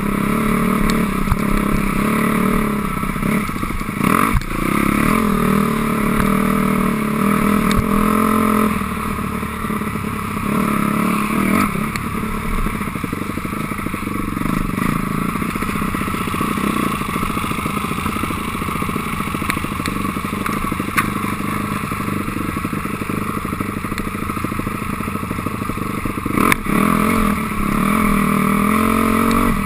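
2006 Honda CRF250R's single-cylinder four-stroke engine running under way, its revs rising and falling with the throttle, with a sharp knock about four seconds in and another near the end.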